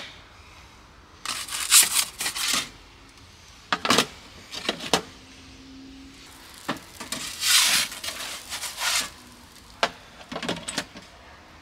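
A pizza peel scraping and sliding on the baking stone of a wood-fired Ooni pizza oven as a pizza is turned, in several short rasping strokes, the longest about halfway through.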